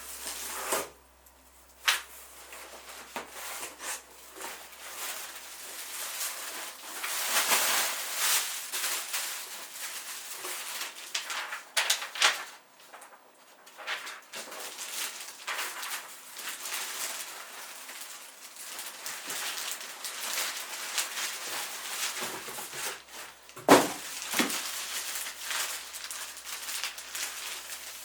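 Computer parts and their packaging handled by hand: rustling of boxes and wrapping with scattered clicks and knocks, the sharpest knock about two-thirds of the way in.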